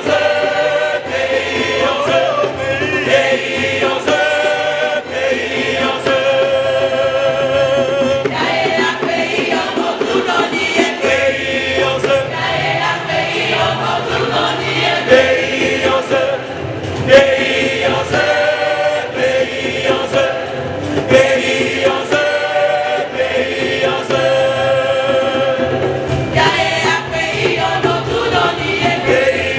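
Church choir singing a hymn with wavering sustained notes over held low bass notes.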